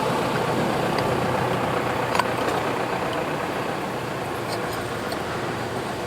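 Engine of a GY-200-1A engineering drilling rig running steadily, with one sharp click about two seconds in.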